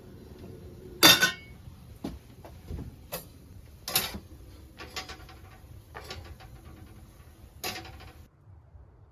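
A series of sharp knocks, roughly one a second, the first the loudest; the sound cuts off suddenly near the end.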